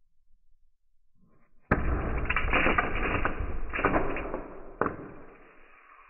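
Dozens of small cube magnets snapping onto a large cylinder magnet and onto each other: a sudden burst of metallic clicking and clattering a little under two seconds in, with several sharper snaps, dying away to a faint rattle.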